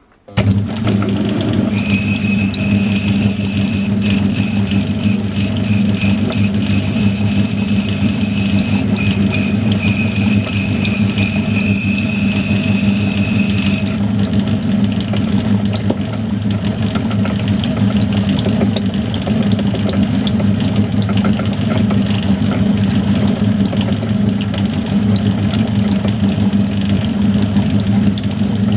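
Metal lathe switched on and running: a sudden start, then the motor and drive's steady hum. A thin high whine rides over it from about two seconds in until about halfway, then stops.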